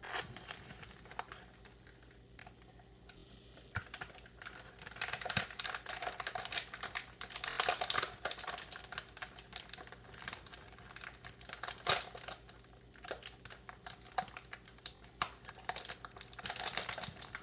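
Rapid, irregular clicking and rustling of things being handled close to the microphone, with one sharper click about twelve seconds in.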